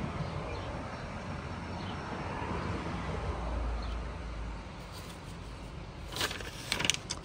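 Steady background hiss inside a car cabin, then a few sharp rustles and clicks near the end from a paper instruction sheet being handled.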